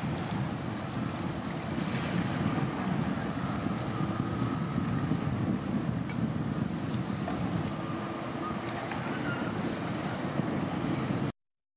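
Steady low drone of a boat engine, with water and wind on the microphone; it cuts off suddenly near the end.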